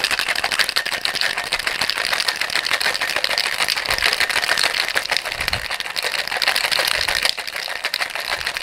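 Ice cubes rattling hard inside a Boston-style cocktail shaker, a metal tin capped over a mixing glass, shaken vigorously to chill a drink: a fast, dense, steady clatter.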